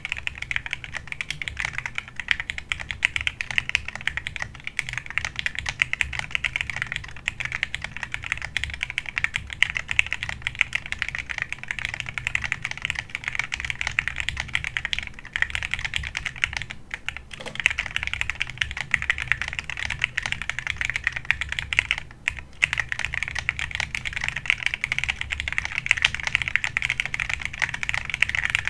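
Steady typing on an AV4 mechanical keyboard fitted with Gateron KS-9 Pro 2.0 White switches, run stock with their factory lube: a continuous stream of keystroke clacks, with short lulls about 17 and 22 seconds in.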